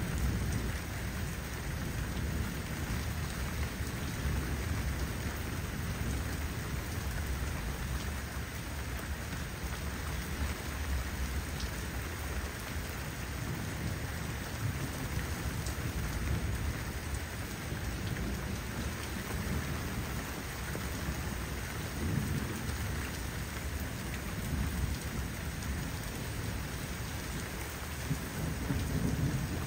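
Steady rain falling, with low rolling thunder rumbling underneath that swells about two-thirds of the way through and grows louder again near the end.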